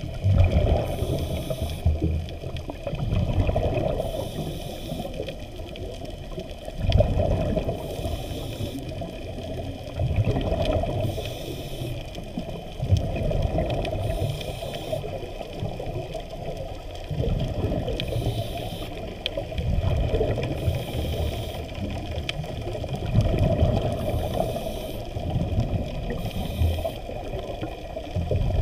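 Muffled underwater water noise through an action camera's waterproof housing: a low rushing that surges every three to four seconds as the camera moves through the water.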